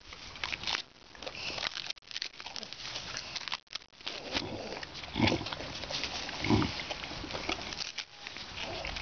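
Caged macaques giving two short, low grunts about five and six and a half seconds in, over a steady crackling rustle.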